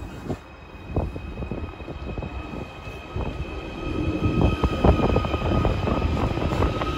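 Merseyrail Class 777 electric multiple unit pulling out along a station platform, with a steady electric whine and the clicking of its wheels on the track. It grows louder about halfway through as the carriages roll past.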